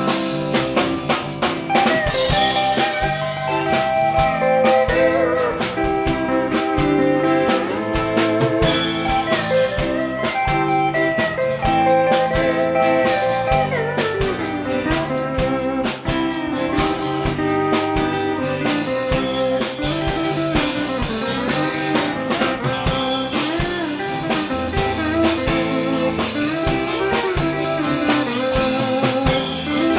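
Live country-blues band playing an instrumental break: a pedal steel guitar solo of long, gliding, bending notes over electric bass and a drum kit keeping a steady beat.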